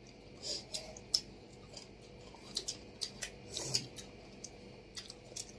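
Quiet eating sounds: chewing and mouth clicks, with fingers mixing rice on plates, heard as a scatter of short, irregular clicks.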